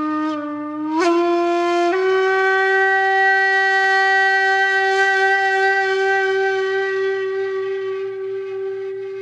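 Background music: a wind instrument holding one long note, which steps up in pitch twice about one and two seconds in and then holds steady, growing slightly softer toward the end.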